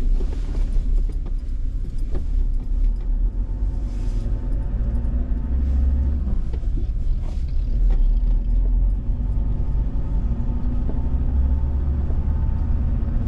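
Engine and road noise of a moving vehicle: a steady low rumble, with faint engine tones that shift slowly in pitch.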